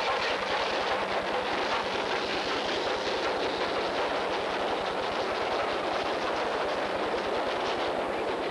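LNER K1 class 2-6-0 steam locomotive pulling away with its train: a steady, fast run of sharp exhaust beats, with the coaches rolling past.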